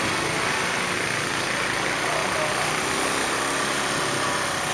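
Motorbike engine running as the bike rides along a street, under a steady rush of wind on the microphone.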